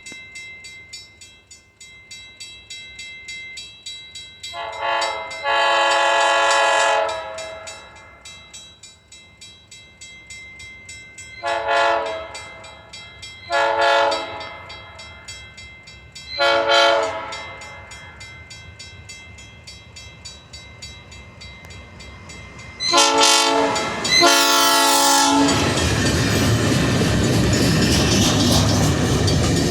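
Herzog work train's locomotive horn sounding a series of blasts: one long blast, three short ones a couple of seconds apart, then two blasts close together. Right after the last blast the train passes close by, with loud steady wheel and rail noise.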